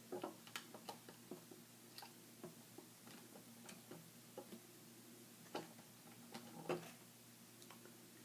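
Faint, irregular clicks and taps of small plastic Lego pieces being handled and pressed together, with a few louder snaps about half a second in and again between five and a half and seven seconds in.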